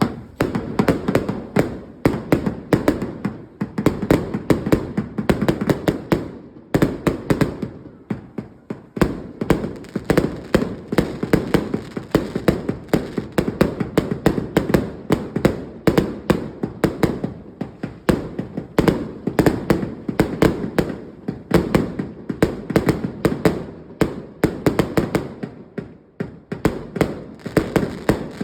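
A 100-shot firework cake firing in rapid succession: a dense, continuous string of launches and bursts, several every second. There are short lulls about a quarter of the way through and near the end.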